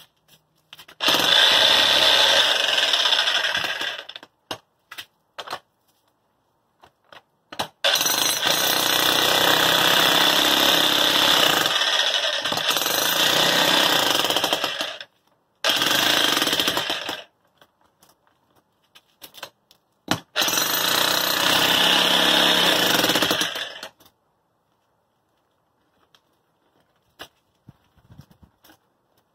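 Corded electric jackhammer with a flat chisel bit hammering into the concrete footing of a metal fence post bracket. It runs in four bursts of a few seconds each, with short pauses and faint knocks between them.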